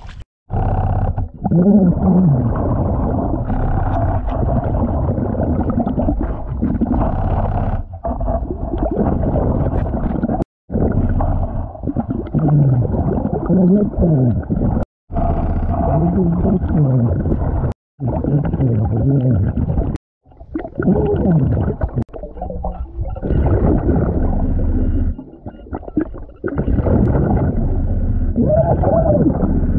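Muffled underwater rumbling and bubbling from a diver's breathing gear, heard by a camera underwater, with slow rising-and-falling swells. It cuts to silence abruptly several times.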